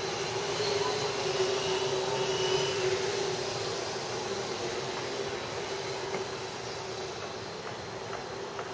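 Hexacopter's six brushless motors and 12-inch propellers buzzing steadily in flight. The hum grows louder about a second in and eases off a little after about three seconds.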